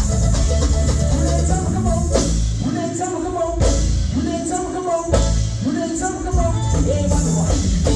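Live band music: a singer over bass, guitar and a drum kit, with sharp drum hits a few times through the passage.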